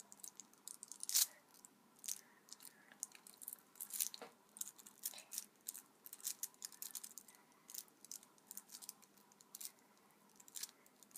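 Faint, irregular small scratches and crinkles: a needle tool scoring fine lines into polymer clay, with the hand moving over the aluminium foil beneath it.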